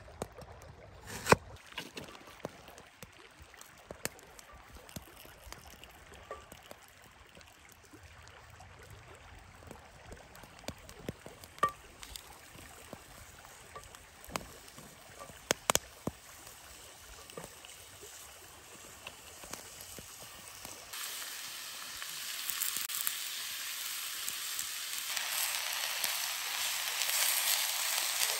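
A knife cutting quince on a wooden chopping board, a few sharp knocks, then scattered light clicks and taps as the slices are handled and laid into a cast-iron pan. Near the end a steady hiss from the pan over the fire starts, and it gets louder shortly before the end.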